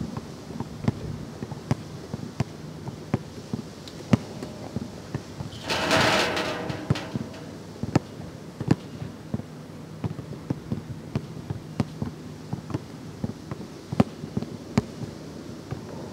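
A basketball bouncing on an outdoor asphalt court, with sharp, irregular knocks about one or two a second. About six seconds in comes a louder, longer crash with some ringing as the ball strikes the backboard and rim on a layup.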